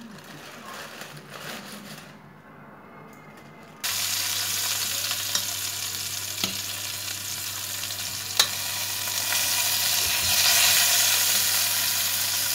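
Parboiled baby potatoes frying in oil in a pot, a steady loud sizzle that starts suddenly about four seconds in, as a spoon turns them and clicks against the pot a couple of times.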